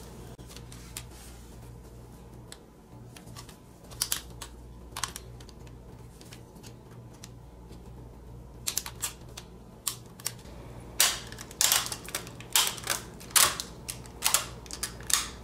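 Knife blade cutting a section out of a stiff white plastic part: sharp clicks and snaps as the blade bites and bits of plastic break off. The clicks are scattered at first and come quickly over the last few seconds, over a faint steady hum.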